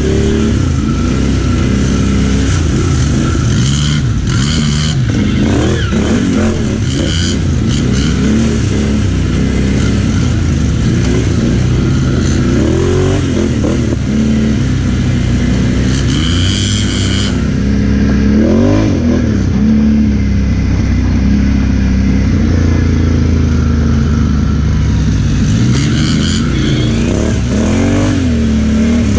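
ATV engine running, revved up and down several times, each rev a rise and fall in pitch.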